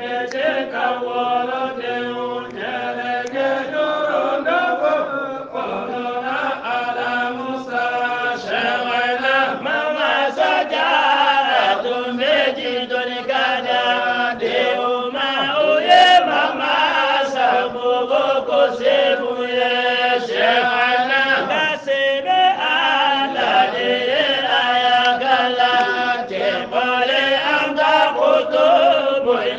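Voices chanting a kassida, an Islamic devotional song of praise, as an unbroken melodic chant.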